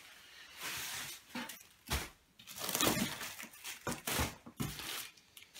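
Plastic packing wrap crinkling and a cardboard box rustling as items are handled and lifted out, in irregular bursts with a few light knocks.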